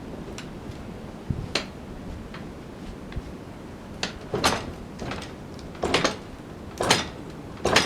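A series of heavy knocks and scraping thuds as a log is pried and bounced against the edge of a sawmill bed with a lever tool, the loudest near the end, over steady wind noise.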